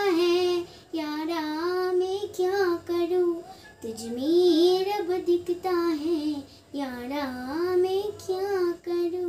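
A young girl singing solo without accompaniment, in held, wavering phrases with short breaths between them.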